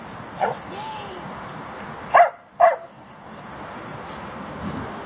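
A dog barking twice in quick succession about two seconds in, with a few fainter short yips before, over a steady high-pitched drone of insects.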